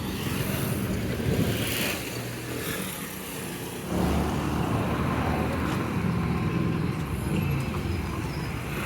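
Motor vehicle engine running steadily with road noise, getting louder about halfway through.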